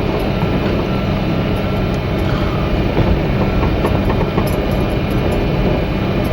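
1987 Ford Ranger pickup driving over a rough dirt field road, heard from inside the cab: a steady engine drone and tyre rumble with light rattles.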